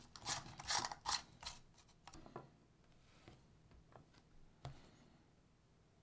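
Handling noises from a small plastic device and its packaging: a quick run of rustles and light clicks for about the first two seconds, then a few isolated faint clicks.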